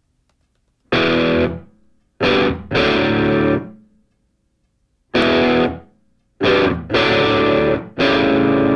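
Music: distorted electric guitar chords, struck one after another, each held briefly and then dying away, with short silences between them.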